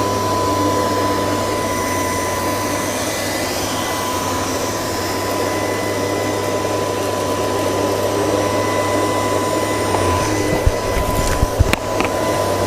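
LG R9 robot vacuum running on carpet: steady suction noise with a constant high motor whine. A few sharp clicks and knocks come near the end.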